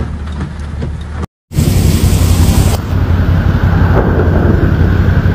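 Heavy rainstorm recorded on phone microphones: steady rain and wind noise with strong low buffeting. It cuts out briefly a little after a second in, then comes back louder.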